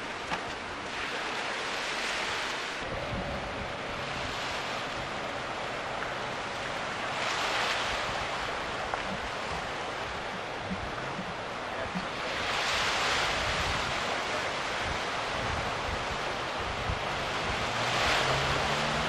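Sea surf: waves breaking and washing in, swelling in surges about every five seconds.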